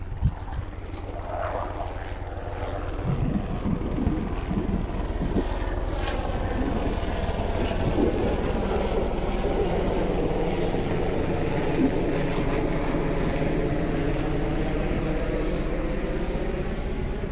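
A motor engine droning steadily as it passes, growing louder over the first few seconds and then holding.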